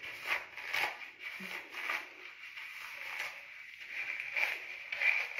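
Fingers working through wet, washed short hair, making soft, irregular rubbing and squishing strokes about one or two a second.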